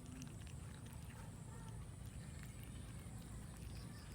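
Cats eating rice: faint, irregular small clicks of chewing and mouthing food, over a steady low rumble.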